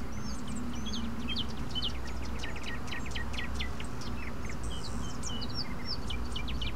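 Birds chirping: many short, quick, high chirps, mostly falling in pitch, over a steady low rumble.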